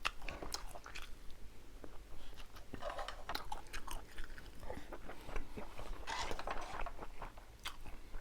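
Close-miked eating: a person biting and chewing food, with many short crisp crunches.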